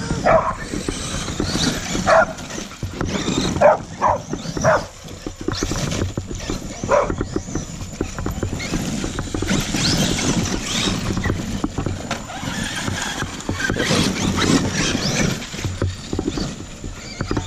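A dog yelping in short high calls several times, mostly in the first seven seconds, while it chases an electric Traxxas RC monster truck. Under it runs the rough crunch of gravel under the tyres and paws and the whir of the truck's motor.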